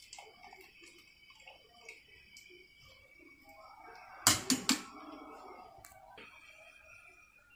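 A wire spider strainer knocks three times in quick succession against the rim of a metal cooking pot, a little over four seconds in, as parboiled basmati rice is tipped in. Before the knocks there are soft scattered sounds of wet rice being scooped and dropped.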